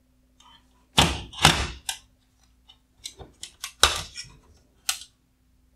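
Plastic headlight parts being handled and set down on a wooden workbench: a run of sharp knocks and clicks, the loudest about a second in and again just before four seconds in.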